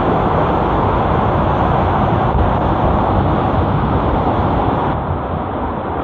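Loud, steady rush of whitewater in a rock gorge around a kayak, easing slightly near the end.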